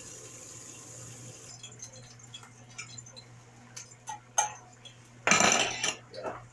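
Kitchen tap water running into a plastic tub of sliced sweet potatoes, shut off about a second and a half in. Then a few light clinks and knocks of dishes, with a louder, brief clatter about five seconds in.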